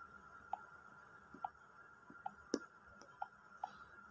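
Faint smartphone touch-feedback clicks: short, separate ticks every half second to a second as options are tapped in an app form, with one sharper click about two and a half seconds in.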